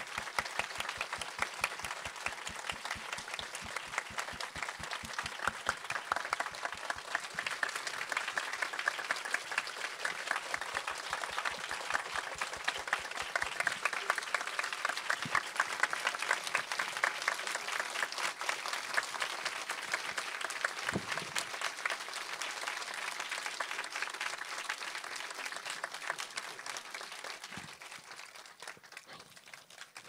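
Cinema audience applauding steadily, dying away near the end.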